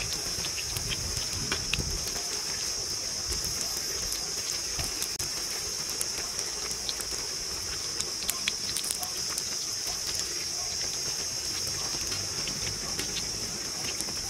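Bread pakoras deep-frying in hot oil: a steady sizzle with many scattered crackles and pops, under a constant high-pitched whine.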